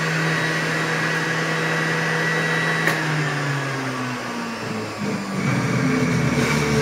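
Juiceman centrifugal juicer's motor running with a steady whine. About three seconds in its pitch sags and the sound turns uneven and rougher as produce is pressed down the feed chute into the spinning cutter basket.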